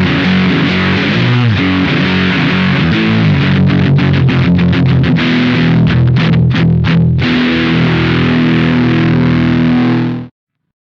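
Electric guitar played through a Velouria FX Witchcraft distortion/preamp pedal, heavily distorted. Chords are followed by a run of short, choppy stabs in the middle, then a held chord that cuts off suddenly just before the end.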